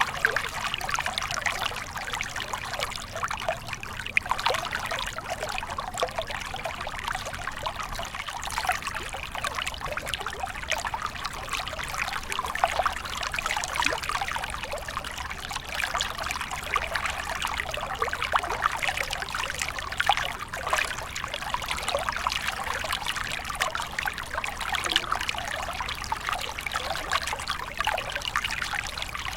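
Stream water flowing steadily, a continuous rush of running water dense with small splashes.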